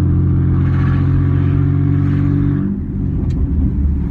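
Chevy pickup's engine heard from inside the cab while driving, a steady drone that breaks up and drops about two and a half seconds in, with a single click shortly after. The truck is a tired, clapped-out parts truck that struggles to pull.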